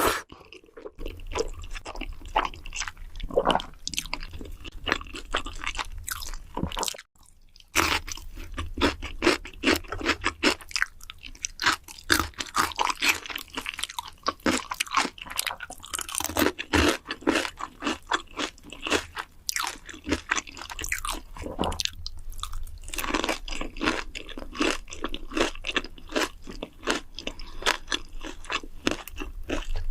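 A person eating crunchy food, with many crisp crunches and chewing sounds in quick, irregular succession and a short silent break about seven seconds in.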